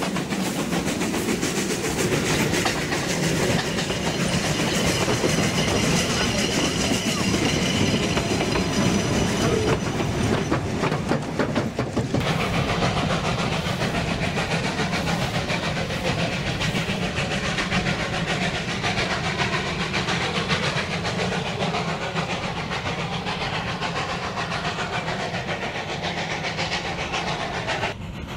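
Steam-hauled train of coaches rolling past on a mountain rack railway, wheels clattering on the track, with a high-pitched squeal from about two to ten seconds in. After about twelve seconds the sound changes to the train running steadily further off.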